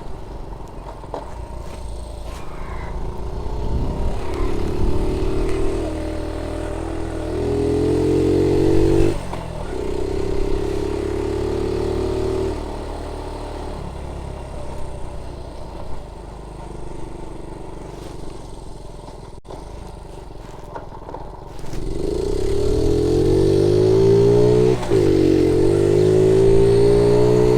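Honda Z50J monkey bike's small four-stroke single-cylinder engine revving as the bike accelerates and changes up through the gears, the pitch climbing and then dropping sharply at each shift. A quieter stretch in the middle is followed by a hard pull away near the end, with a shift about three seconds before the end.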